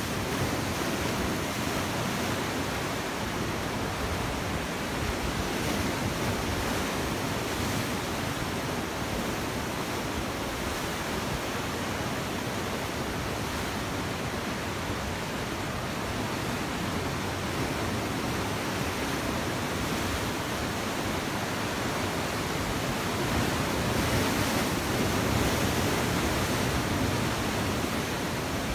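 Sea waves breaking and washing over rocks: a continuous rushing surf that swells louder for a few seconds near the end.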